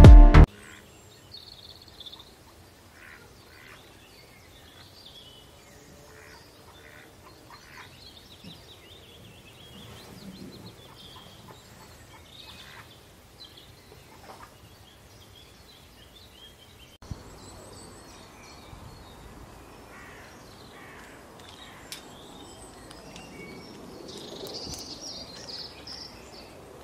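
Faint outdoor background with scattered short, high bird chirps; loud music cuts off just after the start.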